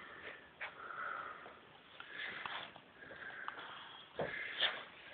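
A dog sniffing and snuffling close up, in short irregular breaths with a few soft clicks.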